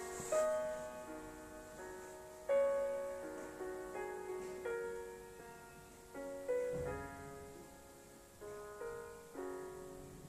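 Slow solo piano music, notes and chords struck about once a second and left to ring away.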